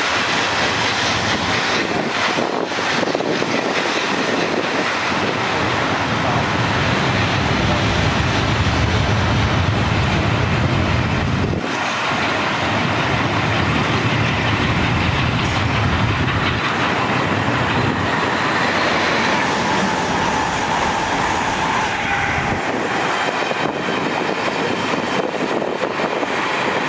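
A steam-hauled train of passenger coaches rolling past as it pulls out of the station, with a steady rumble and the clatter of wheels over rail joints. The rumble is heaviest in the middle stretch and eases as the train draws away.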